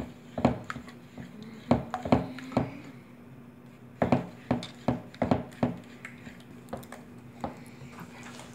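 A utensil knocking and clinking against a mixing bowl while borax solution is stirred into glue to form slime: a string of sharp taps in clusters, thinning out near the end.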